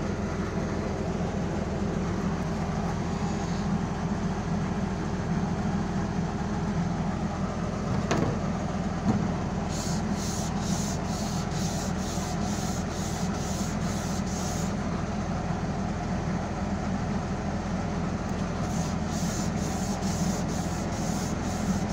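Wet hand-sanding of primer-filler on a Peugeot 203 body panel with a long sanding block. Even back-and-forth scraping strokes, about two a second, come in about ten seconds in, pause for a few seconds and start again near the end. A steady low hum runs underneath.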